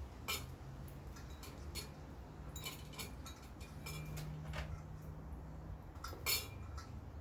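Scattered light metallic clicks and clinks of small hardware being handled, the loudest about six seconds in, over a low hum that swells briefly in the middle.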